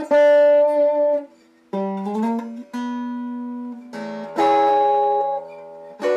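Epiphone Dot semi-hollow electric guitar played clean through an amplifier on the neck pickup with the tone control turned all the way down: single plucked notes, some sliding up in pitch, then a chord struck about four and a half seconds in.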